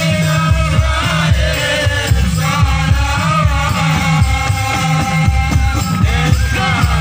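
Sholawat devotional singing with drum accompaniment: sung melodic lines that bend and hold throughout, over a steady pattern of low, regular drum beats.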